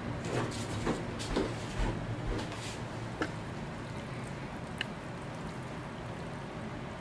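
Kitchen clatter of a stainless-steel sauté pan and metal tongs: a run of knocks as the pan of spaghetti is handled, then two sharp metallic clinks of the tongs against the pan about three and five seconds in, over a steady low hum.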